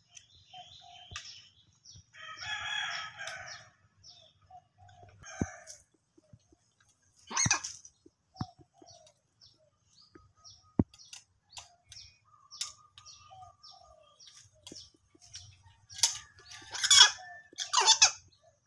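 A rooster crowing: one crow of about a second and a half starting about two seconds in, and louder calls near the end, among scattered short chirps and clicks.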